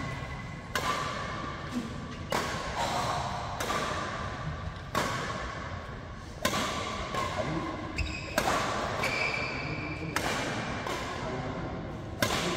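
Badminton rally: racket strings striking a shuttlecock, a sharp smack every second or so, echoing in a large hall.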